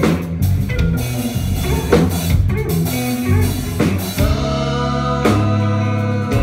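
Live band playing guitar and drum kit, with steady drum hits throughout. About four seconds in, the guitar moves to long held chords with only a few hits over them.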